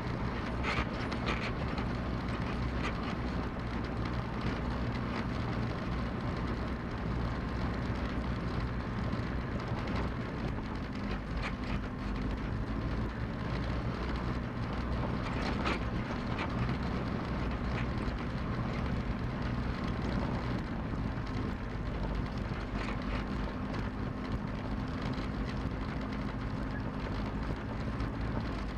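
Diesel Cessna 172's engine and propeller running at low power while taxiing, heard inside the cockpit. The engine note shifts slightly about ten and twenty seconds in, with a few faint clicks.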